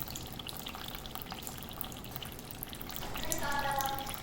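Running water with small splashes and drips as a pet bird bathes. Near the end comes a short held pitched sound, a voice or a call.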